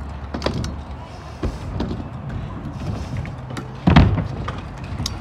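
Stunt scooter clattering on concrete: a few knocks, then one loud impact about four seconds in.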